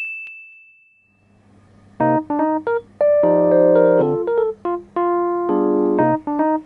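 A bright chime sound effect rings and fades away over the first second or so, then about two seconds in, background keyboard music starts: short repeated chords with brief gaps between them.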